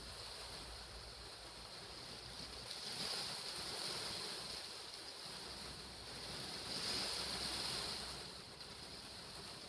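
Steady rain falling, a soft hiss that swells twice, about three and about seven seconds in.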